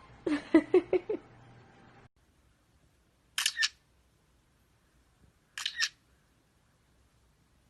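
A quick run of four or five short pitched calls, then two sharp double clicks like a camera shutter, about two seconds apart.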